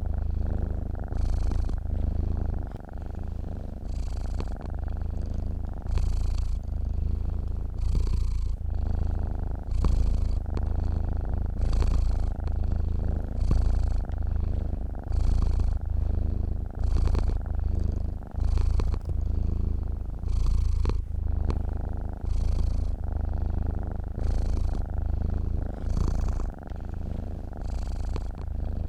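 Domestic cat purring in its sleep: a deep, continuous rumble that swells and eases in a steady rhythm with each breath in and out.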